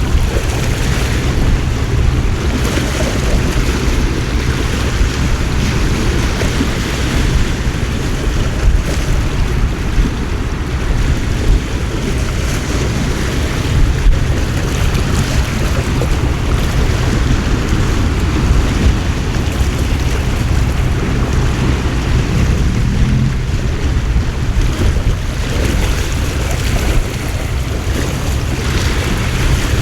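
Storm at a harbour: a steady, dense rush of heavy rain and wind, with a low rumble of wind buffeting the microphone.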